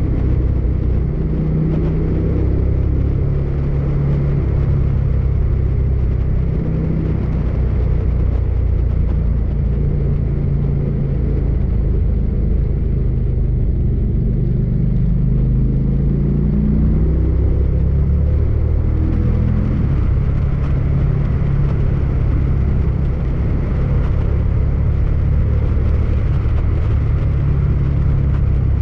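Motorcycle engine running at road speed, with steady wind and road noise. The engine note dips and then climbs again about halfway through as the speed changes on the curves.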